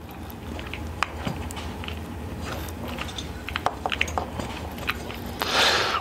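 Rubber boot being worked down over a diesel heater's glow pin wires by hand: crackling, crunching rubber-and-wire handling sounds with scattered small clicks over a low rumble, and a louder rush of noise near the end.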